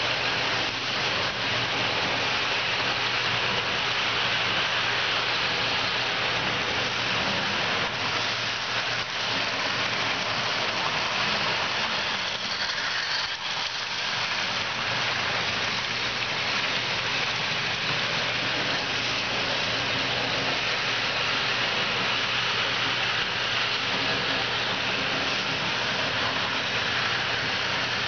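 Model trains running past on a layout: the steady whirr of their motors and the rattle of wheels on the track.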